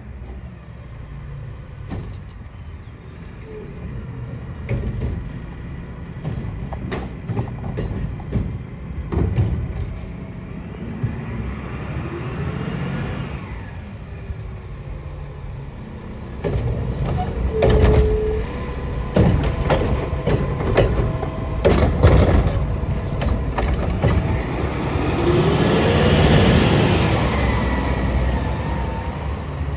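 Mack LR garbage truck with a Heil Curotto-Can arm running as it drives up and stops, with an air-brake hiss and sharp metal knocks and clanks. Near the end its engine revs up and back down.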